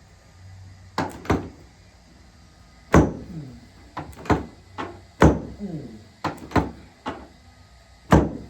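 Chiropractic drop table: the drop sections snapping down to their stops under the chiropractor's thrusts, a series of about eleven sharp clacks at irregular spacing, several in quick pairs.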